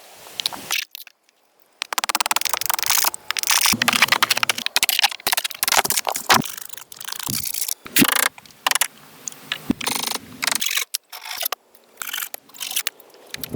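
Wood and brush being worked by hand: scraping, crunching and cracking noises, with many sharp snaps, in a string of short clips that cut off abruptly.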